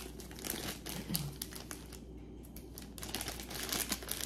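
Thin plastic zip-top bag crinkling in short, irregular rustles as a beaded necklace is pulled out of it by hand. There is a brief lull a little past the middle.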